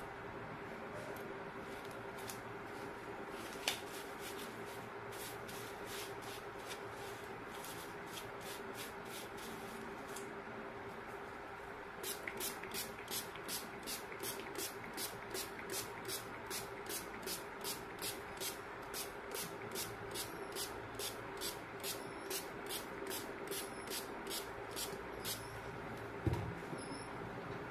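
Handheld hair dryer running steadily, a rushing blow of air with a low motor hum, blowing over wet poured acrylic paint. A single sharp click comes a few seconds in. From about halfway a regular light ticking, about two a second, runs alongside, and there is a thump near the end.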